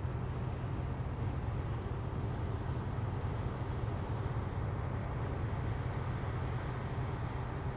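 Steady low drone of a heavy-lift cargo ship's engine under way, with an even background hiss.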